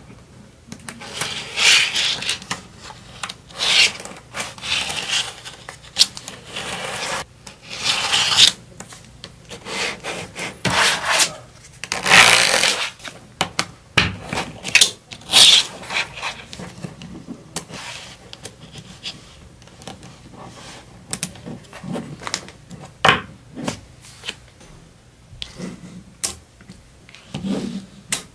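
Small neodymium magnetic balls clicking and snapping together as they are handled, with longer rasping rubs as the rows are rolled and pushed across a paper surface. The long rubs come in the first half, and the second half is mostly short, sharp clicks.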